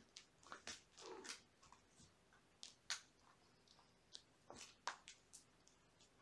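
Faint, irregular scratches and rustles of kittens wrestling on a plush toy and carpet.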